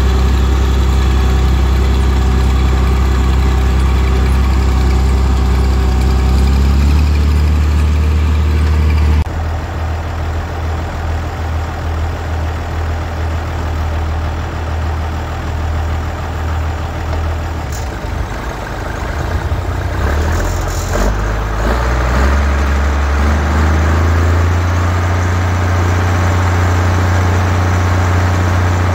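A farm tractor's diesel engine runs steadily while driving with wagons. About nine seconds in the sound changes abruptly to tractor engines and machinery running at a silage bagger, rougher and noisier at first, then a steady engine drone gets louder near the end.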